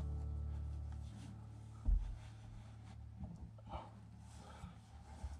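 A sustained music chord fades out over the first second. Then quiet handling noise follows: a soft thump about two seconds in and faint rustles as a hand presses new car carpet down onto tacky contact cement.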